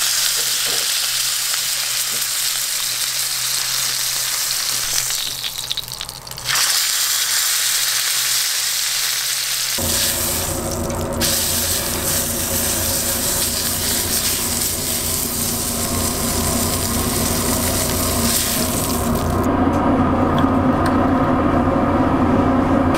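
Thick beef steak sizzling and frying in hot butter in a pan, with a short dip around six seconds in. About ten seconds in, a steady low roar of fire sets in under the sizzle and carries on to the end, the sizzle thinning out in the last few seconds.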